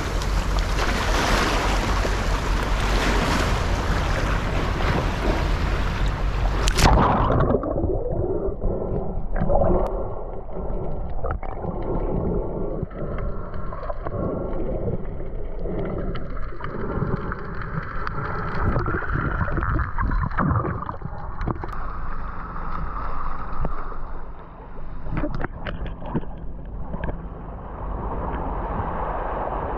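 Sea water heard through an underwater camera: a loud rushing hiss for about the first seven seconds, cutting away sharply to a muffled underwater churning with irregular gurgles and knocks.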